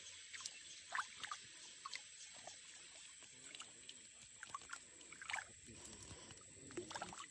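Faint, scattered small splashes and trickling water from caught fish being put into a container.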